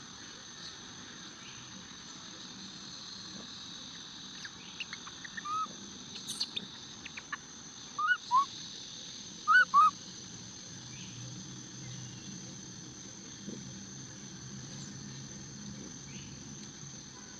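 A string of short, arched chirping calls between about four and ten seconds in, the loudest coming in quick pairs, over a steady high hiss.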